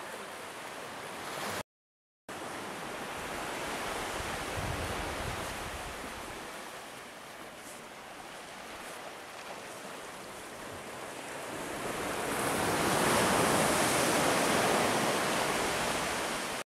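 Small waves washing onto a sandy beach, a steady wash that swells louder about twelve seconds in. The sound cuts out briefly about two seconds in.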